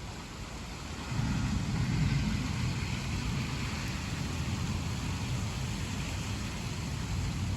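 Thunder rumbling low and long, coming in suddenly about a second in, over a steady hiss of rain.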